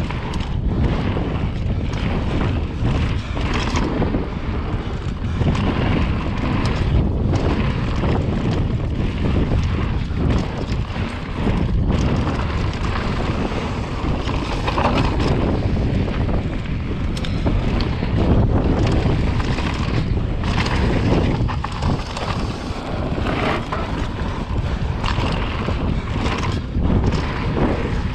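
Wind buffeting the microphone of a mountain bike descending a dirt trail, mixed with tyre noise and frequent short knocks and rattles from the bike over the rough ground.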